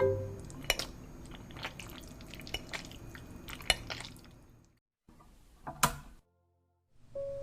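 Soft wet clicks, drips and squishes of food being handled, with scattered small ticks. One sharper click comes near the end, just before the sound cuts out.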